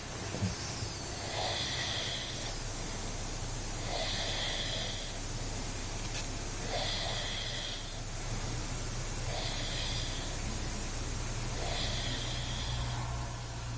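A sleeping man's snoring breaths, hissing through the nose about every two and a half seconds, five times in all, with an anti-snoring nasal device on that is not stopping the snoring.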